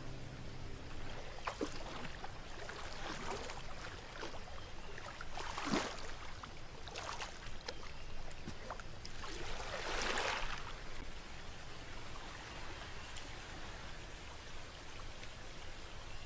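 Shallow, muddy river water splashing and sloshing as a person crawls through it: a handful of separate splashes, the longest about ten seconds in.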